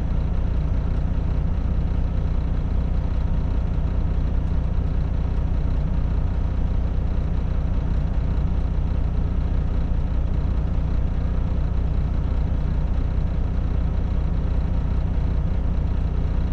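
Semi truck's diesel engine idling steadily, a low even rumble heard from inside the cab.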